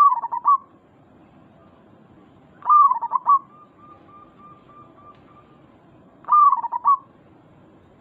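Local zebra dove (perkutut) cooing: three short phrases of quick staccato coos a few seconds apart.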